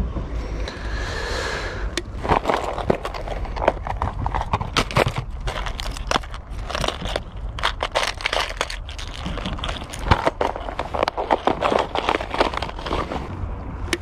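Dry grass and twigs crunching and crackling in irregular bursts as someone moves through the brush at the water's edge, over a low rumble of wind on the microphone.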